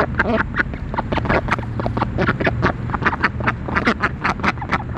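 Ducks dabbling and nibbling at grass close by, a quick, uneven run of bill clicks and snips, several a second, with a short quack near the start. A low steady hum runs underneath.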